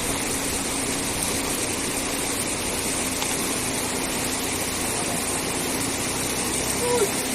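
Steady rushing noise of river water, with a faint low hum running under it.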